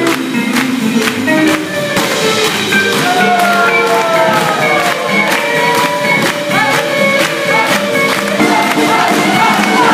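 Live swing band playing an up-tempo tune: a steady beat, with a melody line that slides up and down in pitch over it.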